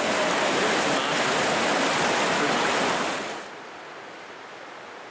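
Whitewater river rapids rushing loudly and steadily, cutting off about three seconds in to a much quieter steady hiss.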